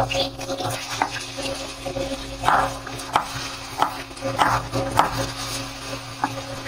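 Kitchen knife slicing a small onion on a plastic cutting board: a string of irregular knocks as the blade strikes the board, about seven in all, over a steady low hum.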